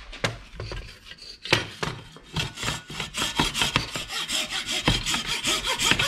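Hacksaw cutting through the plastic mounting ear of a Ford Coyote throttle-by-wire accelerator pedal: a few scattered knocks as the blade is set, then steady back-and-forth sawing strokes from about two seconds in. It cuts easily.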